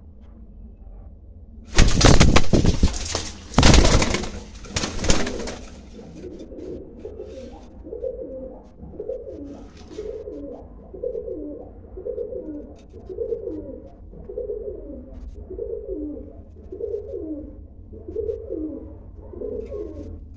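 Domestic pigeons on a perch: a few seconds of loud rustling noise near the start, then a run of low falling coo notes, about one a second, through the rest.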